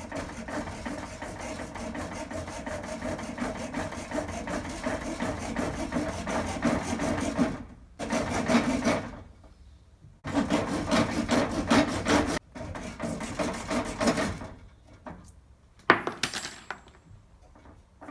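A pipe or fitting being scraped or sanded by hand in rapid back-and-forth strokes while it is prepared for joining. The strokes come in three long stretches with short pauses about 8 and 12 seconds in, then a few scattered scrapes and one sharp knock near the end.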